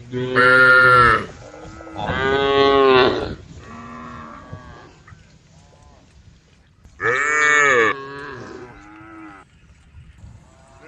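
Cows mooing: three loud, drawn-out moos, one right at the start, one about two seconds in and one about seven seconds in, with fainter moos from other cows in between.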